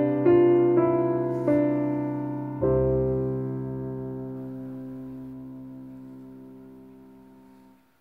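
Calm background piano music: a few single notes, then a final chord about two and a half seconds in that rings and fades away, stopping shortly before the end.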